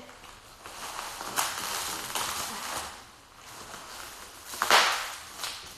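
Bubble wrap and plastic packaging crinkling and rustling as it is pulled off a framed record plaque. There is a sharp crackle about a second and a half in and a louder burst of crinkling near the end.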